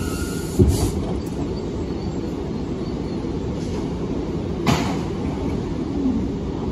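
Bombardier R179 subway train running along the track: a steady low rumble of wheels on rail, with two sharp thumps, one about half a second in and one a few seconds later.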